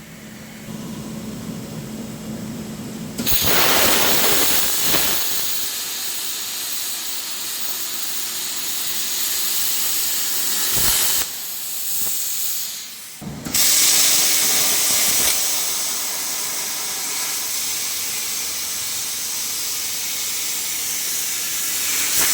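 CNC plasma cutting torch hissing loudly as it cuts. The hiss starts abruptly about three seconds in, after a quieter hum, and breaks off briefly twice near the middle before starting again.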